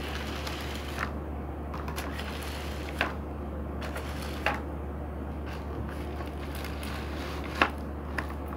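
Dyson V6 cordless stick vacuum running steadily as it sucks up dry seed husks and small pellets from carpet. Pieces crackle and click as they are pulled up the wand, with a few sharp clicks standing out, the loudest about three seconds in and another near the end.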